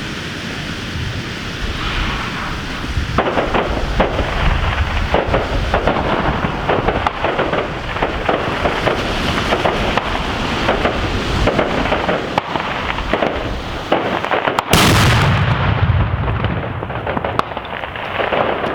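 Homemade firework going off: a rapid, uneven string of bangs and crackles starting about three seconds in, then one louder blast about fifteen seconds in.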